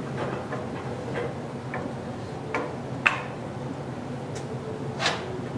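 A few sharp clicks and knocks of metal parts as the worn bearing is worked out of a snowmobile idler wheel. The loudest comes about three seconds in, and a steady low hum runs underneath.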